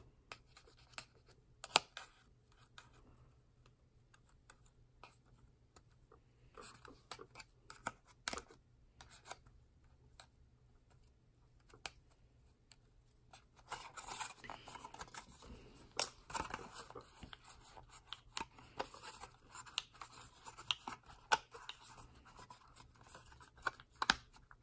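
Thin plastic candy mold tray being handled while a fingertip presses and smooths soft candy dough into it: scattered small clicks and taps, then, from about 14 seconds in, a denser stretch of scratching and rubbing.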